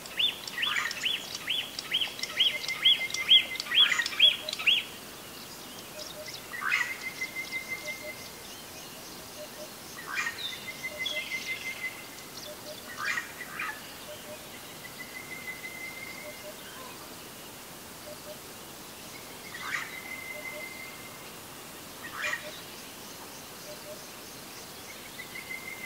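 Birds calling: a run of about ten clear, evenly spaced whistled notes in the first five seconds, then short rapid trills and sharp chirps recurring every few seconds.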